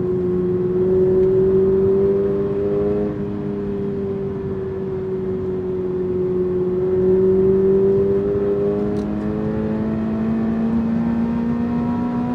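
Toyota GR86's 2.4-litre flat-four boxer engine running under light to moderate throttle while driving. The pitch stays fairly steady with gentle rises and falls, and the sound swells louder twice.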